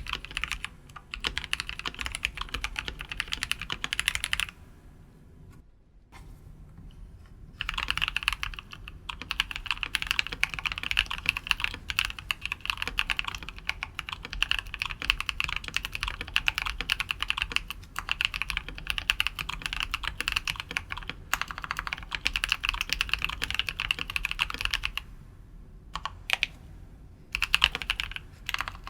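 Fast continuous typing on a mechanical keyboard with linear switches: dense, rapid key strokes, with a pause of about three seconds a few seconds in and a shorter pause near the end.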